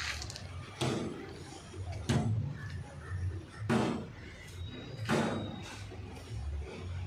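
Four dull knocks, each a short stroke about a second and a half apart, over a steady low hum.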